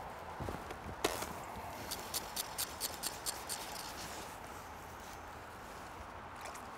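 Fly reel clicking while a hooked carp is played on the fly rod: one sharp click about a second in, then a quick even run of about nine clicks, five or six a second.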